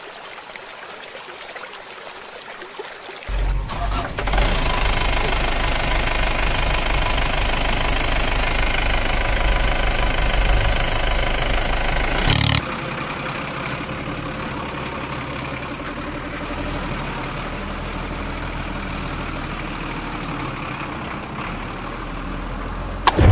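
Vehicle engine sound mixed with background music. It steps up sharply about three seconds in to a loud, steady running sound with a deep rumble, then switches abruptly about halfway to a quieter, steady engine sound.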